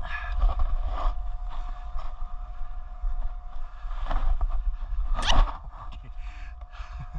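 Snowboard scraping over snow, with wind rumbling on the microphone; one louder scrape about five seconds in.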